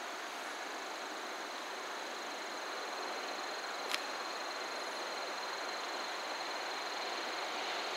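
Steady outdoor hiss with insects trilling at a constant high pitch, and a single sharp click about four seconds in; the hiss grows slightly louder towards the end.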